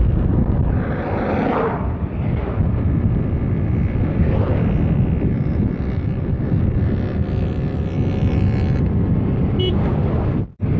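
Steady rush of wind and road noise from a Honda Beat FI scooter riding at speed in the rain. The sound cuts out for an instant near the end.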